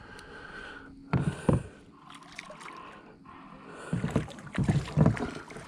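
Water splashing and knocks at the side of a boat as a hooked catfish, played out after a long fight, is brought in to the net: a couple of splashes about a second in, then a busier run of splashing and knocking near the end.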